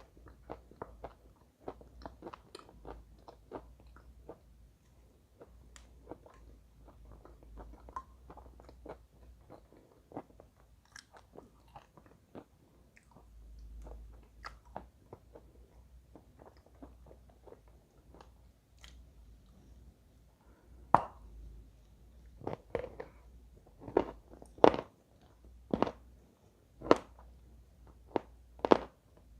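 A person chewing chalk eaten with clay paste: many small crackling crunches, then from about two-thirds of the way through, louder sharp crunches roughly once a second as pieces are bitten off.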